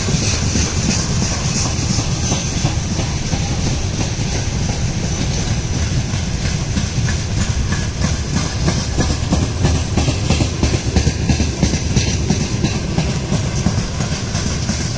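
Loaded wagons of a broad-gauge mixed freight train rolling past, their wheels clattering steadily over the rail joints with a continuous rumble.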